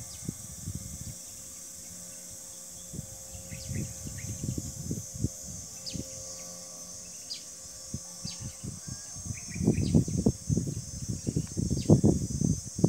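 Steady high-pitched insect chorus, with short bird chirps now and then. Bursts of low rumble on the microphone are the loudest sound, growing heavier from about ten seconds in.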